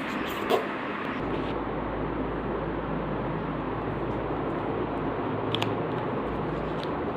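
Steady background noise with a few light clicks: one near the start and one about five and a half seconds in.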